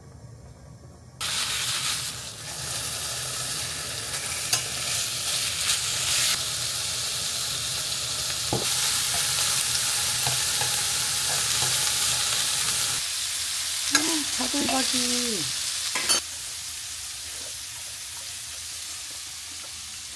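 Thin-sliced beef brisket (chadolbaki) sizzling as it fries in a pan, the sizzle starting abruptly about a second in, with a few sharp utensil clicks. The sizzle is quieter in the last few seconds.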